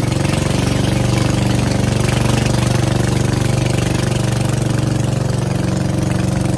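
Engine of a small motorized wooden boat running steadily as the boat cruises along a river channel, a constant unchanging drone.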